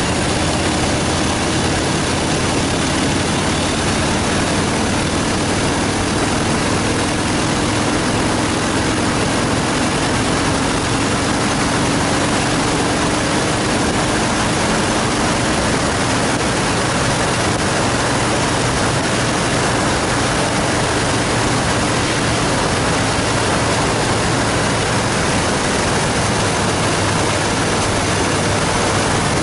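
Steady rush of wind over a handlebar-mounted microphone on a 2014 Harley-Davidson Fat Boy Lo cruising at a constant highway speed, with the air-cooled V-twin engine running evenly beneath the wind noise.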